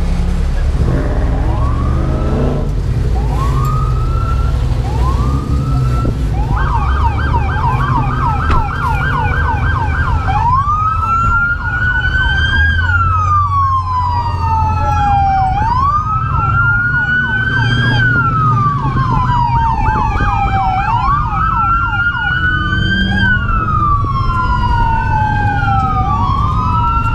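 Police car sirens. Short rising whoops come first, then a rapid yelp starts. About ten seconds in, a slow wail joins it, rising and falling every two to three seconds, so two siren tones overlap over a steady low rumble.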